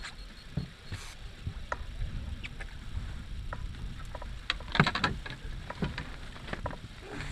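Scattered knocks and clatter of gear and footsteps on a fishing boat's deck, over a steady low rumble. A burst of several loud knocks comes about five seconds in.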